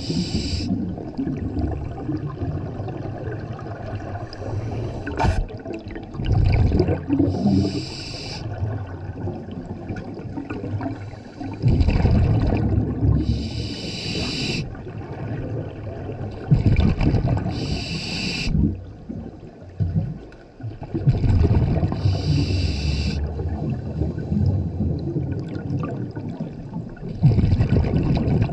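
Scuba regulator breathing underwater: a hiss with each inhale alternating with a rumbling burst of exhaust bubbles with each exhale, about one breath every five seconds.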